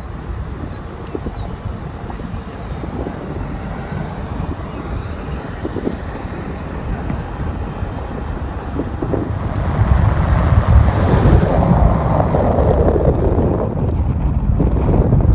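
Wind buffeting the microphone and road rumble from a moving car, getting louder about two-thirds of the way through.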